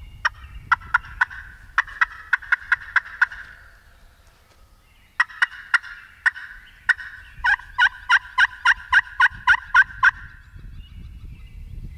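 Turkey yelping in two runs of sharp, evenly spaced yelps. The first lasts about three seconds. The second starts slowly about five seconds in, then quickens to about five yelps a second before stopping near the end.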